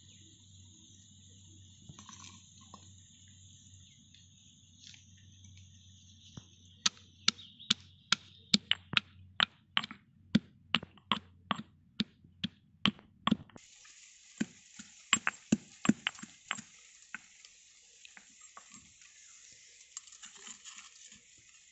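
Stone pestle pounding cashew nuts in a small stone mortar: sharp knocks about three a second for several seconds, then a few slower strikes. Near the end, a spoon scrapes and stirs the crushed nuts in the mortar.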